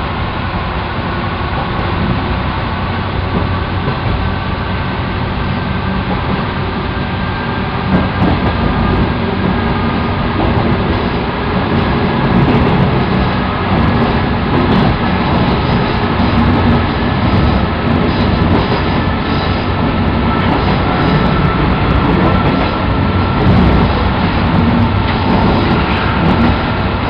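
Inside the ex-JNR diesel railcar KiHa 205 under way: its DMH17 diesel engine drones steadily under the floor, growing a little louder about eight and twelve seconds in, while the wheels click over the rail joints.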